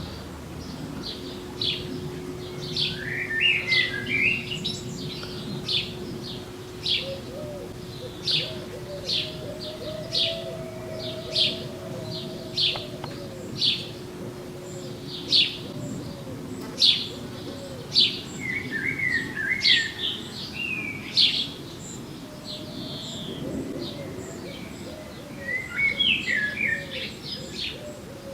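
Garden songbirds chirping over and over with sharp high notes, broken by short warbling phrases a few times, while a pigeon coos low and repeatedly through much of it.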